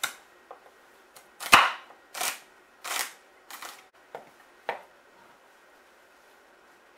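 Chef's knife chopping a celery stalk on a wooden cutting board: about seven separate knocks of the blade striking the board, the loudest about a second and a half in, stopping about five seconds in.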